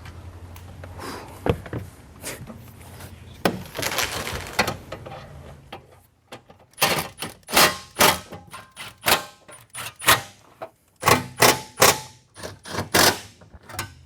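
Irregular sharp knocks and clicks from handling and fitting the car's trunk trim and parts, thickening into a quick run of loud knocks about halfway through.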